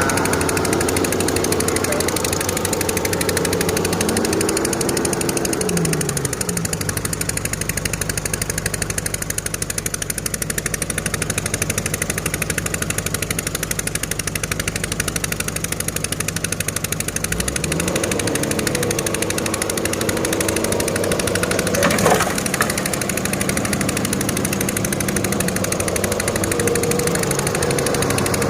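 Excavator's diesel engine running with a knocking clatter. It drops to a lower speed about six seconds in and speeds back up about ten seconds later, with a sharp knock a few seconds after that.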